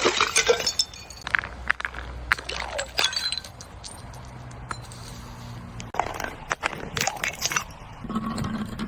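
Glass breaking: sharp cracks and tinkling shards in a burst at the start, scattered clinks over the next couple of seconds, and another burst of breaking and clinking about six seconds in.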